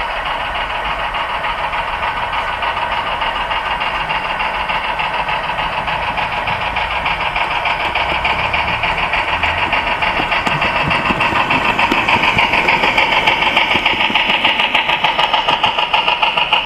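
Model train running on the layout track: a steady motor whine with rapid, even clicking of small wheels over the rail, growing louder as it approaches.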